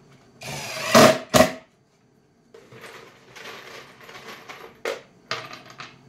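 Cordless drill driving a drywall screw into plywood: one loud run that builds up, then a short second burst. After a pause, screws rattle as a hand rummages in a coffee can of them, with a few sharp clicks as screws are dropped onto the plywood.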